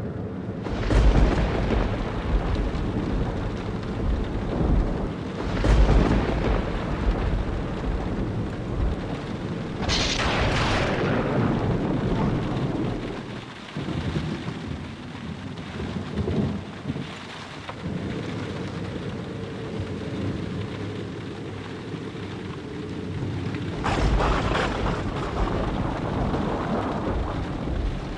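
Thunderstorm: several sharp thunder cracks that roll off into rumbling, the loudest about a second in, around 6 and 10 seconds in, and again near the end, over steady rain.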